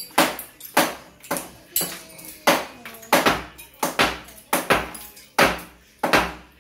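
Hammer blows on a concrete sink counter, about two a second, chipping away the old concrete and tiles; some blows ring briefly where the hammer meets metal.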